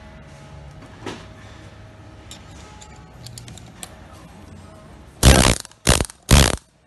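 Yokota YDP-13 pneumatic dowel pin puller fired in three short, loud bursts about half a second apart near the end, working a threaded dowel pin out of a steel mould plate. Before that, only faint clicks of the tool being handled.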